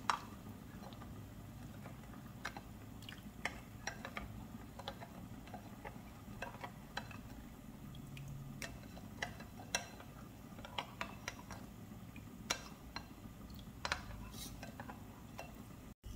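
Metal spoon stirring a thin cornflour-and-ketchup sauce in a glass bowl, with irregular light clinks and scrapes of the spoon against the glass.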